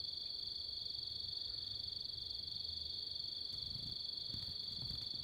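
Crickets chirping in a steady, unbroken high-pitched trill, with a few faint low thumps near the end.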